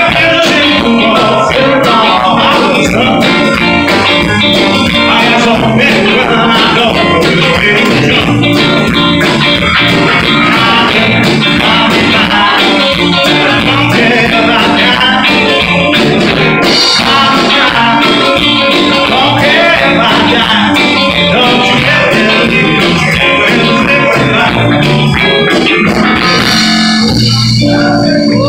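Live blues band playing loud and steady: electric guitars over a drum kit. Near the end the playing changes to long held, ringing notes.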